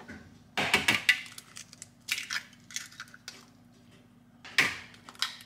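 Eggs being cracked against a mixing bowl: sharp knocks and clicks of shell on the bowl, grouped about a second in and again two to three seconds in, with one last crack near the end.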